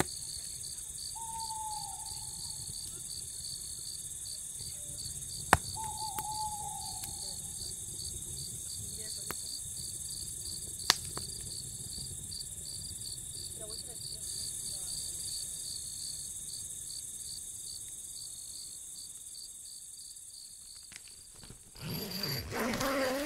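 Crickets chirping in a steady, evenly pulsing night chorus, with two sharp pops from a campfire. Near the end a brief, louder jumble of sound comes in.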